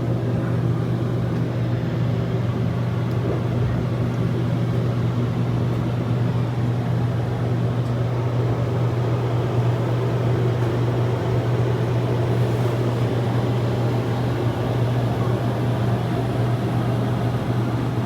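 Steady low mechanical hum with a whir over it, heard inside an enclosed Ferris-wheel gondola as the wheel turns.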